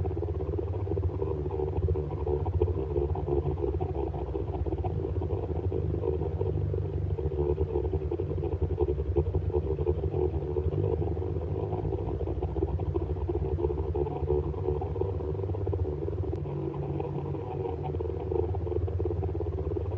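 Science-fiction warp engine hum sound effect: a steady low droning hum with a fast flutter running through it, holding the same pitch and level throughout.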